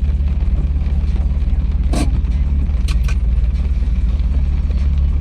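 BMW E34 525's engine running steadily, heard from inside the cabin as a low, even hum. There are a few sharp clicks about two and three seconds in.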